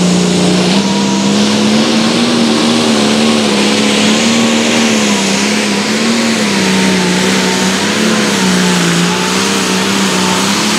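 Limited Pro Stock pulling tractor's turbocharged diesel engine running flat out under load as it drags the weight sled down the track. The engine note holds high and steady, wavering slightly up and down.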